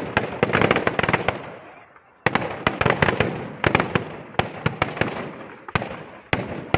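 Firecrackers packed in a burning effigy going off: a dense crackle of sharp bangs that dies down about two seconds in, then starts again suddenly and continues as irregular sharp cracks.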